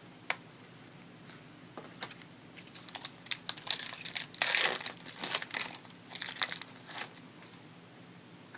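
Crinkly card packaging handled in bursts for about four seconds, starting a few seconds in, with a light click just after the start.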